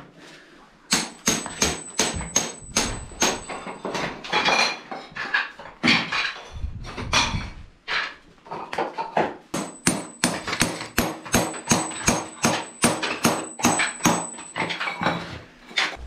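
A hammer striking glazed ceramic floor tiles, breaking them up and prying them loose, in quick runs of sharp knocks, a few a second. There is a short pause at the start and another about halfway.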